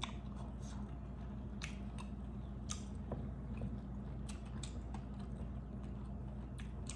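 Close-up chewing of egusi soup and plantain fufu eaten by hand, with scattered short wet clicks and smacks. A steady low hum runs underneath.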